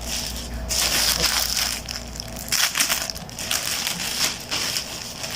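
Packaging crinkling and rustling irregularly as a parcel is handled and opened by hand.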